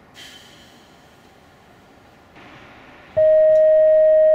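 A loud, steady electronic beep: one long, even tone that starts about three seconds in and holds without change, after a few seconds of faint hiss.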